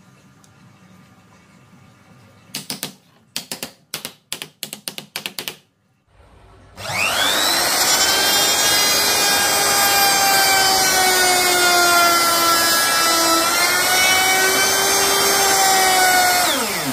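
Electric woodworking power tool spinning up, running at a steady high pitch for about ten seconds with one brief dip as it takes load, then winding down. Before it, a quick run of sharp clicks or knocks.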